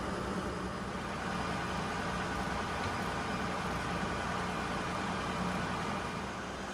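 Steady drone of running machinery in a ship's engine room, with a faint low hum held throughout.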